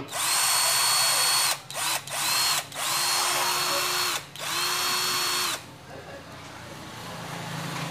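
Makita 12V cordless drill run with no load in a series of short bursts, the motor whining up to speed and winding down each time, with a couple of quick blips among longer runs of about a second. The runs stop a little past halfway through.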